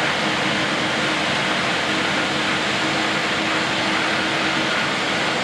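Airbus A319-132's IAE V2500 turbofan engines at taxi idle: a steady rushing jet noise with a faint low hum under it.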